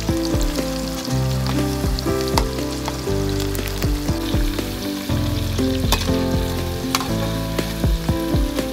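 Whole quail deep-frying in a wok of hot oil, a steady sizzle with fine crackling, stirred with a perforated metal skimmer. Background music with a bass line plays underneath.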